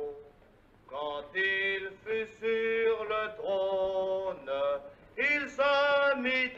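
A man singing unaccompanied, holding long notes of a slow tune with short breaks between phrases, starting about a second in.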